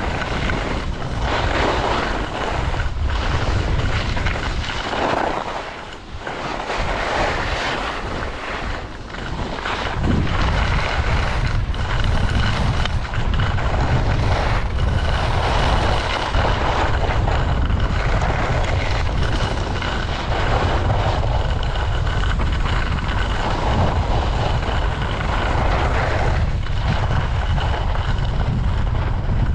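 Wind rumbling on the microphone of a skier's camera during a downhill run, with skis hissing and scraping over packed, groomed snow, the hiss swelling and fading.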